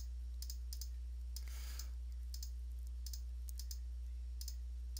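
Computer mouse button clicking several times, sharp short clicks, some in quick pairs, as items in a software list are selected. A steady low electrical hum runs underneath.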